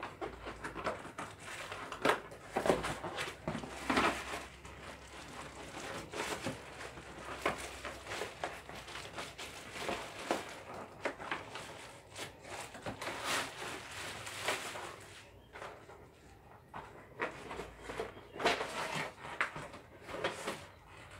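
Irregular rustling, crinkling and scraping of cardboard and plastic packaging as a ring-light box is opened and handled.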